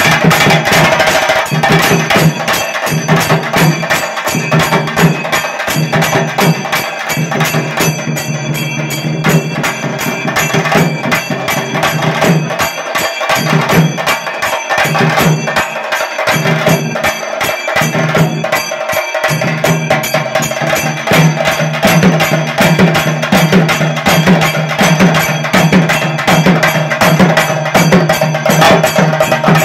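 A group of chenda drums beaten with sticks in a fast, loud, steady rhythm.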